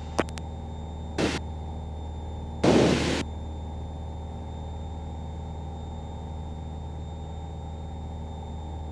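Piper PA-28's piston engine and propeller droning steadily, heard inside the cockpit. There is a click at the start and two short bursts of hiss, about one and nearly three seconds in; the second is the loudest sound and lasts about half a second.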